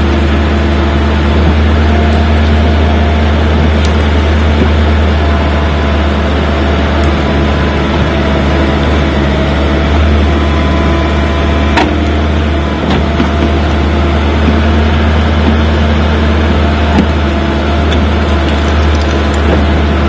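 Caterpillar excavator's diesel engine running steadily close by while its bucket digs, with a few sharp knocks about four and twelve seconds in.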